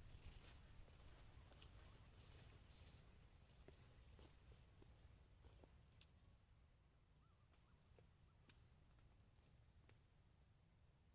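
Faint, steady high-pitched insect chirring, with a few small scattered clicks.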